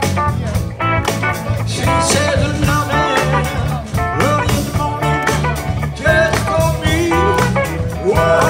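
Live band playing an upbeat blues number with electric guitars, electric bass and a drum kit, in a stretch without sung words.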